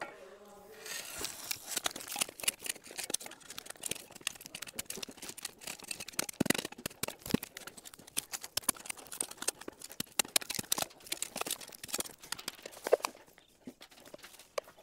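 Footsteps crunching over dirt and gravel, a dense run of irregular crunches starting about a second in and easing off near the end.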